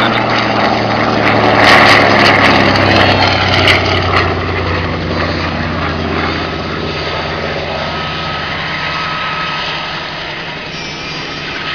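Grumman TBM Avenger's Wright R-2600 Cyclone radial engine and propeller flying past, loudest about two seconds in, with the pitch dropping as it passes, then fading as the aircraft draws away.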